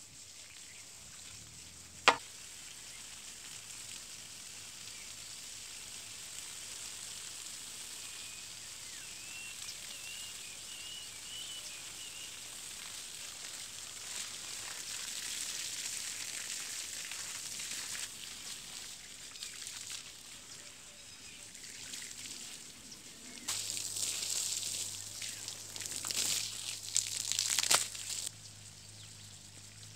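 Water spraying from a hose onto dry soil in the crop beds, a steady hiss and splatter that grows louder and more uneven for a few seconds near the end. A single sharp click about two seconds in.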